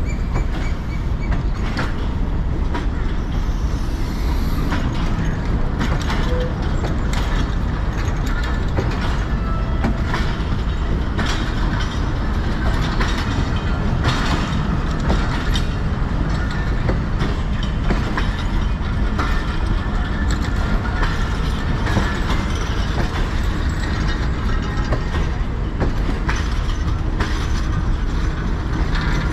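Pakistan Railways passenger coaches rolling slowly past at close range: a steady rumble of steel wheels on the rails, with frequent clanks and rattles from the bogies and couplings.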